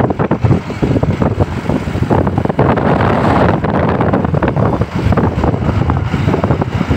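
Wind buffeting the microphone outdoors: a loud, uneven rushing noise whose strength flickers from moment to moment.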